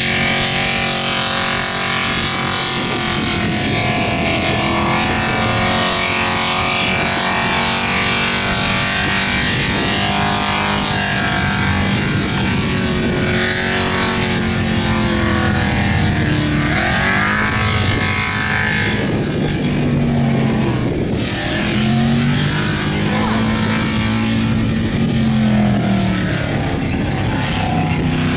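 Holden VK Commodore's V8 engine held at high revs through a burnout, with the rear tyres spinning and screeching on the bitumen. In the second half the revs rise and fall over and over as the driver works the throttle.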